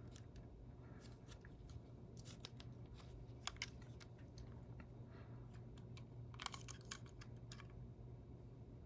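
Faint, scattered clicks and scrapes of small camera parts being handled as the Contour ROAM3's internals are worked out of the plastic housing, with a quick run of clicks about six and a half to seven and a half seconds in.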